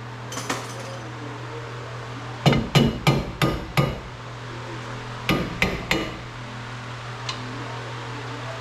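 Hammer blows ringing on metal: a quick run of five strikes, then three more a couple of seconds later, with a few lighter single taps. A steady low hum runs underneath.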